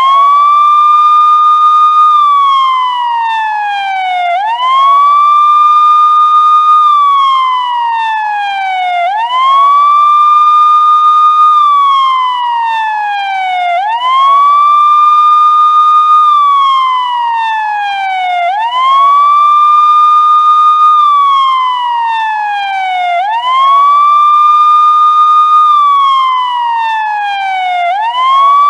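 Police car siren wailing in a slow, repeating cycle: the pitch sweeps up quickly, holds high for about two seconds, then slides steadily down, once about every five seconds.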